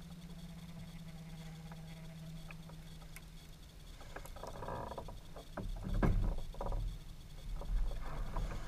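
A hooked bass being landed beside a kayak: a run of splashes, rattles and knocks against the hull, starting about four seconds in and loudest about six seconds in. Before that there is a steady low hum that fades out.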